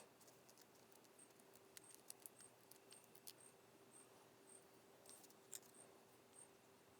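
Near silence, with a few faint ticks and light rustles of card stock being handled over a faint steady hum.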